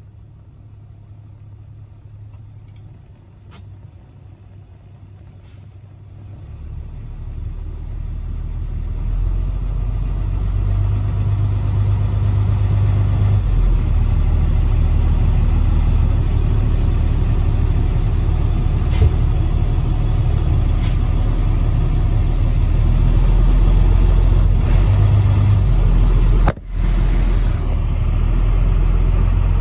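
Heavy vehicle's engine heard from the driver's seat: a low rumble that is quiet at first, grows louder from about six seconds in and then runs steady and loud, with a brief dropout near the end.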